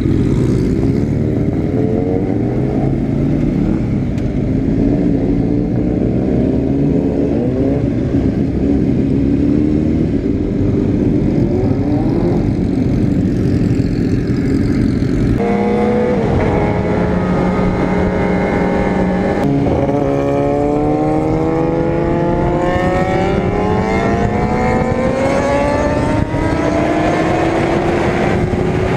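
Honda CBR600RR's inline-four engine heard from on board, accelerating through the gears: the revs climb in several pulls with drops between shifts, hold steady for a few seconds, then climb in one long, gradual pull near the end.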